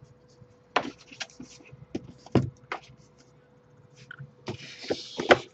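Books being handled in a cardboard shipping box: a series of light knocks and taps as large comic albums are lifted and set down, with a brief rustle near the end.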